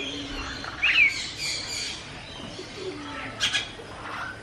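Several small birds chirping, with short up-and-down chirps, the loudest about a second in, and a brief sharp call near the end.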